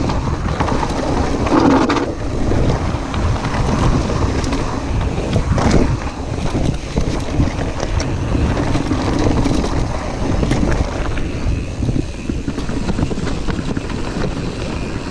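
Wind buffeting the action camera's microphone as a mountain bike descends a dirt and gravel trail at speed. The tyres rumble over the ground and the bike knocks and rattles over bumps.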